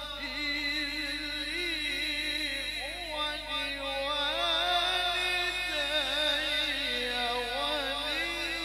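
A man's voice reciting the Quran in melodic tilawah style through a microphone, holding long notes decorated with rapid wavering turns of pitch.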